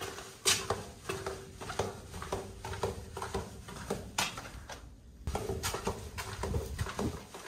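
Footsteps of people walking through a narrow brick tunnel, irregular hard steps a few a second over a faint steady hum, with a short lull about five seconds in.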